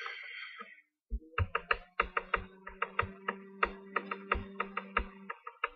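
A fast, irregular run of sharp taps, about five a second, each with a low thud, over a low steady hum that stops about five seconds in; a few more taps come near the end.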